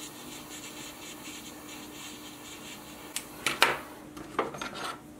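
Lighter flame hissing steadily as it melts the cut end of a nylon paracord strand, followed by a few short clicks and knocks as the lighter is handled and put down.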